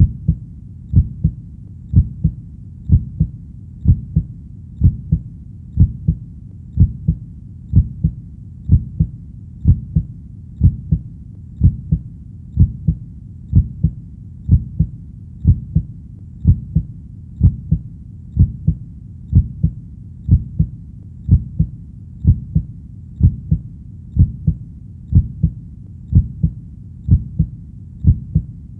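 Heartbeat sound: a steady double thump (lub-dub) repeating about once a second, about 60 beats a minute. The thumps are low and muffled, over a faint steady background.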